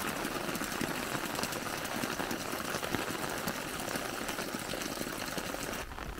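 Rain pattering, with a thin stream of water from an overhead pipe splashing into a puddle: a dense, even patter full of rapid small ticks. It drops away shortly before the end.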